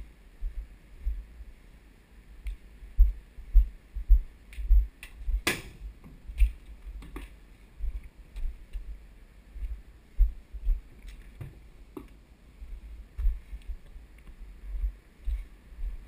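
Wind buffeting the microphone in irregular low gusts, with scattered light clicks and one sharper knock about five and a half seconds in.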